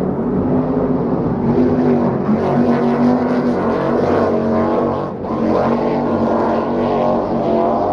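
Offshore racing powerboat engines running at speed: a steady, loud engine drone that shifts slightly in pitch and dips briefly about five seconds in.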